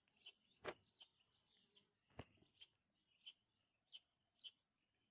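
A cat chewing and smacking wet cat food, quiet wet clicks coming about every half-second, with two sharper clicks about a second and two seconds in.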